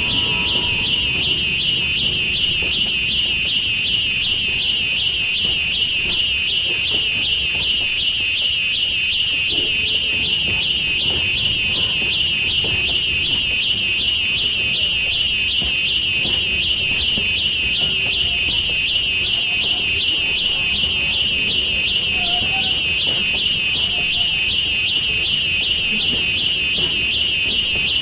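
A steady, high-pitched, alarm-like tone that warbles evenly a couple of times a second without a break, over a low rumbling noise.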